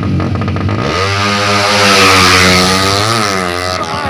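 Drag-racing motorcycle engine revved hard: ragged running at first, then about a second in the pitch climbs steeply and holds at high revs, wavering and bending near the end.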